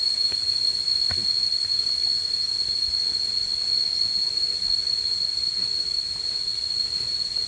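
A steady, high-pitched insect drone holding one unbroken tone over a background hiss, with a couple of faint ticks about a second in.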